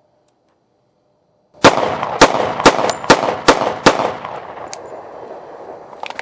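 Ruger SR-1911 Commander .45 ACP pistol firing six shots in quick succession, a little over two a second, after a second and a half of silence. A long echo follows and fades away, with a few faint clicks near the end.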